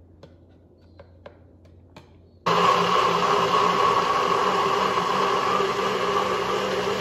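A few faint clicks, then about two and a half seconds in a NutriBullet personal blender starts suddenly and runs steadily, blending vegetable soup.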